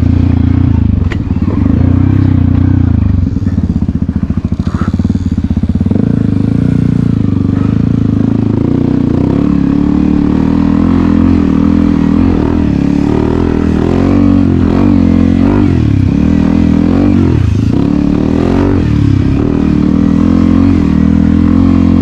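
Dirt bike engine running while riding, its pitch rising and falling again and again as the throttle is opened and closed.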